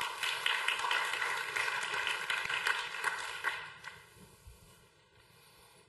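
Audience applauding in an auditorium: many hands clapping together. The clapping fades away about four seconds in.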